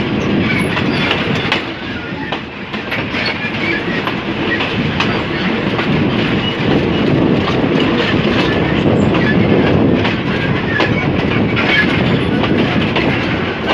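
State Railway of Thailand passenger train running along the track, heard from a carriage window: a steady rolling rumble of wheels on rail with the clatter of wheels over rail joints.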